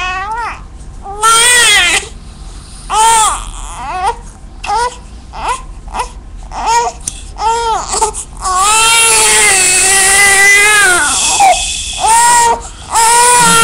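Newborn baby crying: a string of short wails that rise and fall in pitch, then one long wail from about eight to eleven seconds in, and more short wails near the end. The family takes the crying for hunger.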